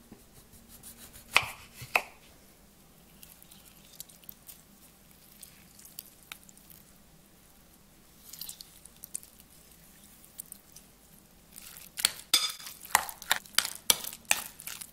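A kitchen knife cuts through a lime and knocks twice on a wooden cutting board, then things go quiet while the lime is squeezed. Near the end, a metal spoon stirs soft mashed avocado in a glass bowl, with a quick run of clinks and scrapes against the glass.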